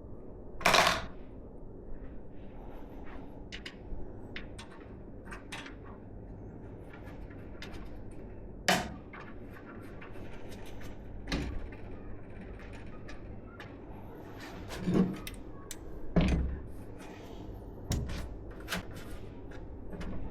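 Hands handling PC hardware: scattered light clicks and taps of plastic and metal parts, with a few louder knocks about a second in and again near 9, 15 and 16 seconds.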